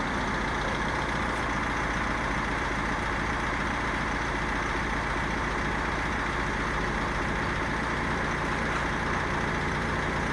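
BMW E46's 2.0-litre 204D4 four-cylinder turbodiesel idling steadily, evenly and without change in speed; the engine is in good running order.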